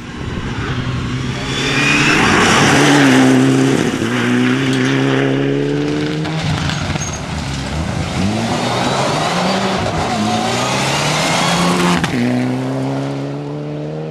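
Rally car's engine revving hard as it accelerates along a gravel stage, the pitch climbing and dropping back at each gear change, with a hiss of tyres spraying gravel; loudest as it passes about three seconds in.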